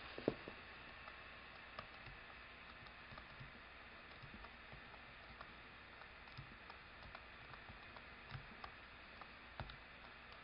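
Faint, scattered light taps and clicks at an irregular pace over quiet room tone.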